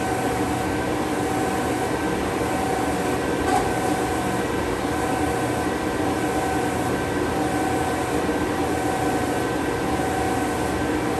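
Harig 12 x 24 hydraulic surface grinder running: a steady machine hum from its motors and hydraulic pump, with a whine that swells and fades every second or two.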